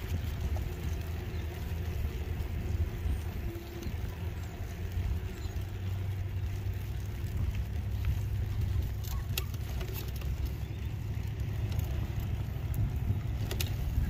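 Wind rumbling on the microphone and tyre noise from a moving e-bike or scooter on pavement, with a few light clicks or knocks around the middle and near the end.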